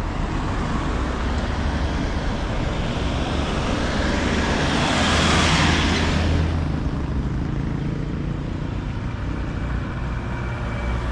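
Road traffic noise over a steady low rumble, with a motor vehicle passing about five seconds in, swelling and then fading.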